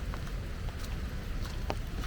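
Walking in the rain: irregular sharp taps of raindrops and footsteps, about five or six in two seconds, over a steady low rumble.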